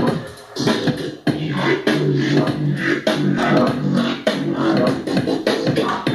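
Electronic bass music with choppy, glitchy beats and bass, dropping out briefly about half a second in.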